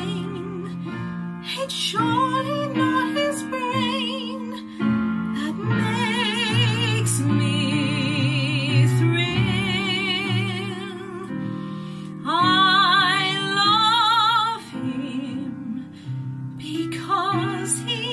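A woman singing a 1920s musical-theatre ballad over an instrumental accompaniment, with wide vibrato on long held notes.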